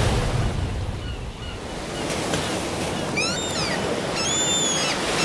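Ocean surf washing steadily, with a few short high bird calls about three seconds in and again near the end.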